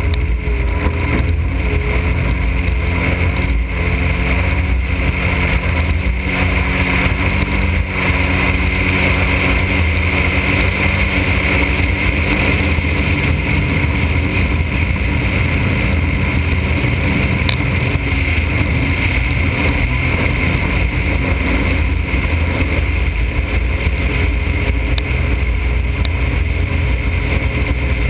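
Motorboat engine running steadily as the boat cruises across open water, with a heavy low rumble of wind and water rush. The engine note wavers slightly at first, then holds steady.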